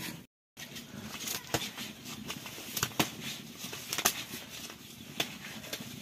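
Feathers being torn out by hand from a freshly killed chicken: an irregular run of sharp snaps and rustles. The sound cuts out completely for a moment about a quarter second in.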